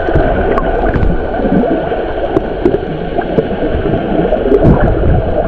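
Sea water sloshing and gurgling around an underwater camera just below the surface, dull and muffled, with a few faint clicks.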